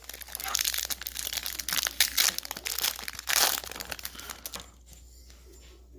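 Wrapper of a hockey card pack being torn open and crinkled in the hands, a dense crackling that dies down about four and a half seconds in.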